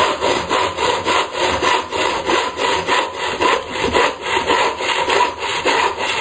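Bahco 244 hand saw cutting through a skirting board, in steady back-and-forth strokes about two a second. The saw is a bit blunt.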